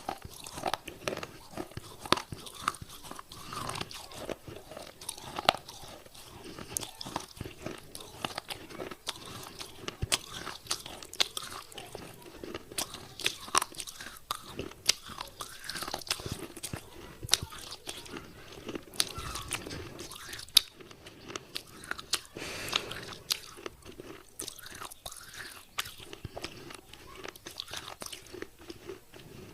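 A person biting and chewing pieces of wet baked-clay pot close to the microphone: dense, irregular crunching with many sharp cracks, several a second, one louder crack a little past two-thirds through.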